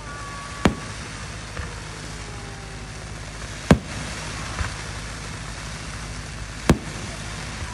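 Fireworks display shells going off: three sharp bangs about three seconds apart, with a steady hiss between them.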